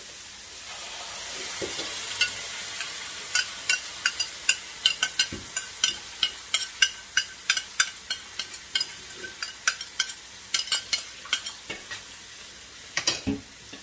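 Mushrooms, onions and garlic sizzling in a frying pan with a steady hiss, while a utensil clicks and scrapes against the cookware many times, about three a second, as the cream of mushroom soup and milk mixture is added and stirred in.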